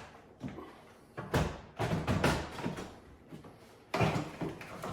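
Tools and gear being packed into a tool bag and plastic tool box: a few knocks and thuds with rustling handling noise, starting sharply about a second in and again near the end.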